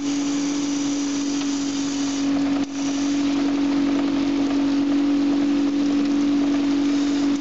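Boat motor running at a steady pitch, with water rushing and splashing against a metal-framed butterfly net as it is pushed through the water.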